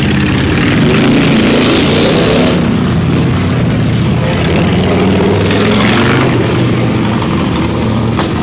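Motorcycle engines running loudly, the exhaust noise swelling twice, about two seconds in and again around five to six seconds in.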